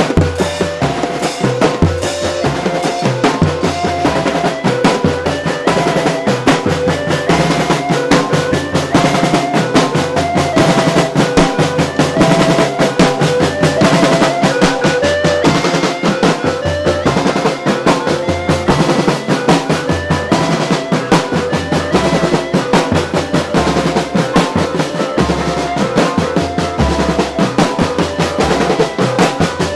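Marching drum band playing: large bass drums and snare drums beating a fast, dense rhythm with rolls, under a melody line.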